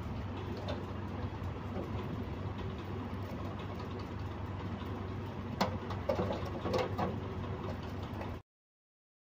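A steady low mechanical hum with hiss, with a few light clicks between about five and a half and seven seconds in; it cuts off suddenly about a second before the end.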